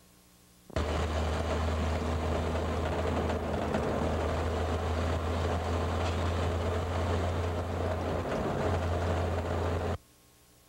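A vehicle driving at a steady speed: an even engine drone with a constant low hum under road and wind noise. It cuts in suddenly under a second in and cuts off suddenly near the end.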